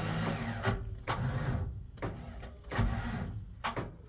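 A 1995 Ford F150's starter cranking the engine slowly and unevenly, in repeated labouring strokes, without it catching: the sign of a weak, nearly dead battery.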